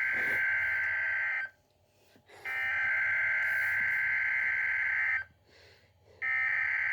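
Emergency Alert System SAME header data bursts on NOAA Weather Radio: harsh, buzzy digital screeches about three seconds long, separated by about a second of silence. One burst ends early on, a full burst follows, and a third begins near the end. They are the coded header that opens the tornado watch alert.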